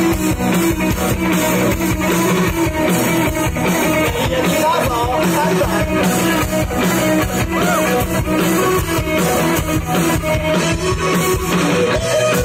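Live rock band playing on guitars with a drum kit keeping a steady beat.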